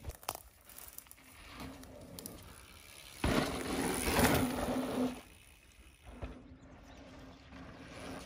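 Electric mountain bikes riding a dirt trail: tyres rolling and crunching over dry dirt with a steady low hum. It grows louder as a rider passes close, from about three to five seconds in.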